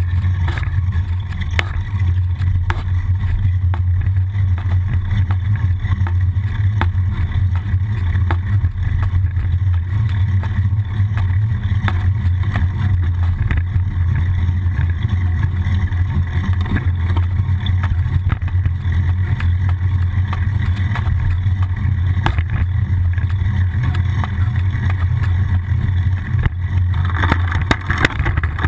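Steady low rumble of wind and road vibration picked up by a camera mounted on the frame of a moving bicycle, with small knocks and rattles from bumps in the pavement. Near the end a brighter hiss joins in.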